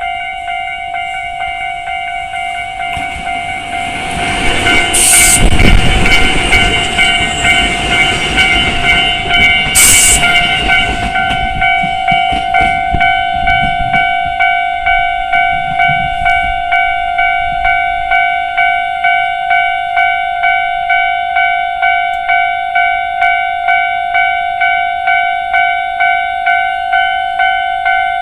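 Japanese railway level-crossing alarm of the standard type, ringing steadily at about two strokes a second, while a Tobu electric train runs over the crossing from about 3 to 13 seconds in, its wheels clacking over the rails and loudest around 5 and 10 seconds in.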